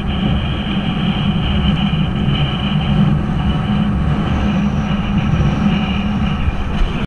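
Steady wind noise buffeting an action camera's microphone mounted on a windfoil's mast and boom while sailing at speed, a loud low rumble with water rushing beneath.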